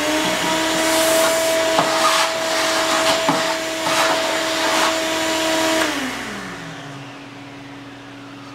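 Ridgid shop vacuum running, sucking out the bandsaw's coolant tank strainer. About six seconds in it is switched off and its whine falls away as the motor spins down.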